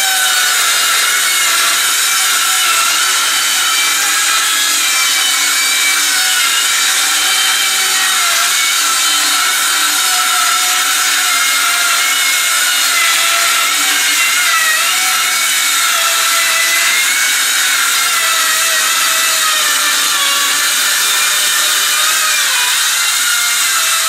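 Skil 18-volt cordless circular saw with a 5 3/8-inch blade ripping a long cut through 3/4-inch plywood: a loud, steady whine of blade through wood, its pitch wavering slightly, with the saw not bogging down. It stops abruptly at the end.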